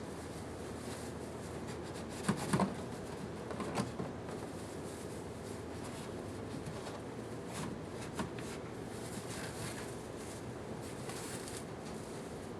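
Packing material and the shipping box being handled: rustling with a short cluster of knocks and clatters about two to four seconds in, and a couple of lighter knocks later, over a steady background hiss.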